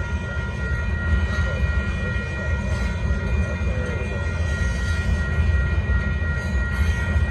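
Union Pacific gravel train running: a steady, heavy rumble with faint, steady high-pitched tones over it.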